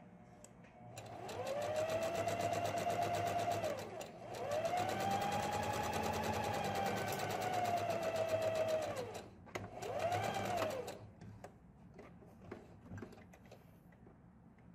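Domestic electric sewing machine stitching a seam in three runs, its motor whine rising as it speeds up and falling as it slows at each stop; the last run is short, about a second. A few light clicks follow as the fabric is handled.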